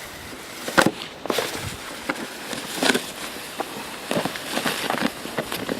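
Footsteps crunching in fresh snow: a string of irregular short crunches, roughly one or two a second.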